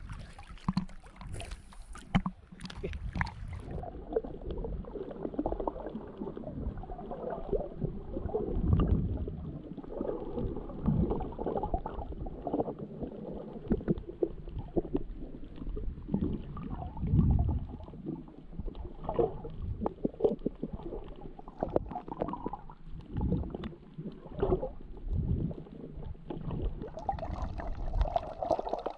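Seawater splashing at the surface for about four seconds, then heard from underwater: muffled, irregular gurgling and sloshing with a low rumble and a few knocks.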